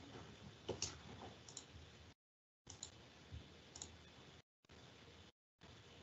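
Faint clicks over the low hiss of an open web-conference audio line. The line cuts out to dead silence several times.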